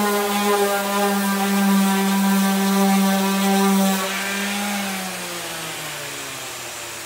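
Electric orbital sander running steadily on a stripped oak tabletop, then switched off about four seconds in, its motor winding down with a slowly falling pitch.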